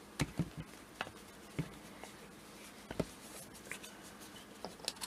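Small clicks and knocks of a plastic fashion doll being handled and turned over in the hands, with light scratchy rubbing of its clothes and hair; a quick cluster of taps just after the start, then single ones spread through the rest.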